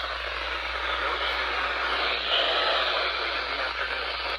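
Steady static hiss from a NOAA Weather Radio receiver, with a low hum underneath.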